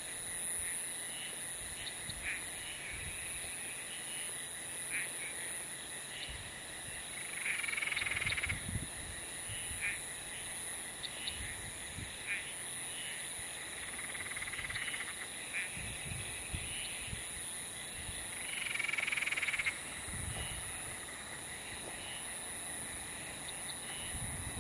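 Frogs calling at a dam: short calls repeat every second or so, with three louder bursts about a second long, a third, halfway and three quarters of the way in. A steady high insect hum runs underneath.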